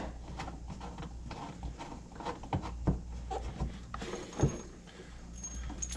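Scattered light clicks and knocks of coax cables, connectors and a small metal antenna switch box being handled on a wooden workbench, with a louder knock about four and a half seconds in, over a steady low hum.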